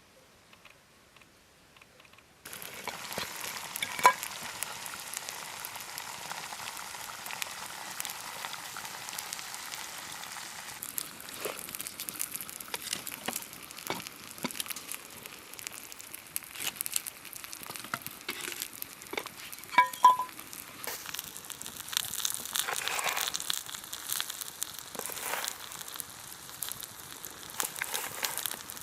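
An omelette frying in a pan over a campfire, sizzling with a dense crackle that starts suddenly a couple of seconds in. Two sharp metal clinks ring out, one soon after the sizzling starts and one about twenty seconds in.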